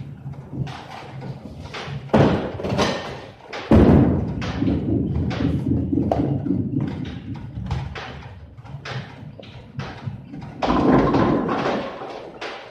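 Bowling alley: scattered knocks and clatter of balls and pins, a loud thud about four seconds in as a bowling ball lands on the lane, then several seconds of low rolling rumble as it runs down the wooden lane. Another burst of rumble and clatter comes near the end.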